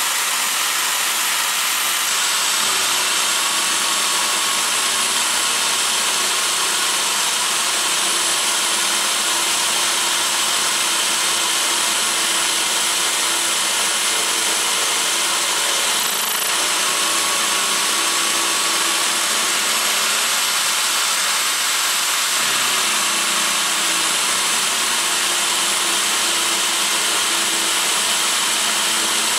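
Electric drill motor running steadily, driving an end mill in an ER20 collet toolpost fixture as it mills a slot in 316 stainless steel bar on a lathe. A steady high whine sits over the continuous noise of the cut, and the whine dips briefly in pitch about halfway through.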